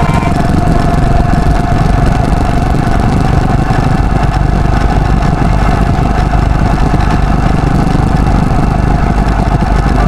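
Motorcycle engine running at road speed, heard from the moving bike, with heavy wind rumble on the microphone and a steady whine over it.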